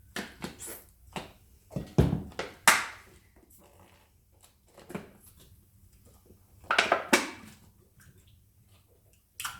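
Irregular squishes and crackles of slime being squeezed and mixed by hand. The loudest clusters come about two to three seconds in and again about seven seconds in.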